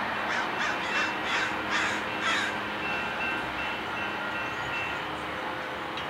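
Crows cawing: a quick series of about six harsh caws in the first two and a half seconds, over a steady background rumble.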